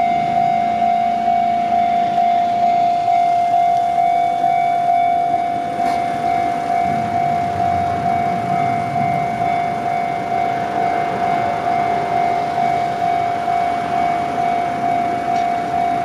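Japanese railway level-crossing warning bell ringing steadily, a single electronic tone repeating about twice a second while the signal flashes for an approaching train. A small kei truck's engine pulls up and stops at the crossing about six to nine seconds in.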